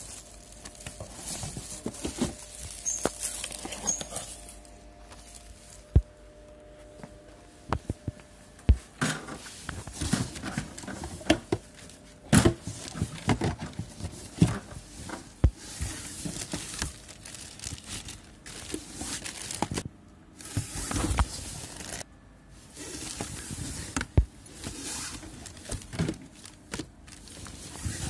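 Empty plastic ink bottles being handled and shifted in a cardboard box, with irregular hollow knocks and clicks and some rustling of plastic bags.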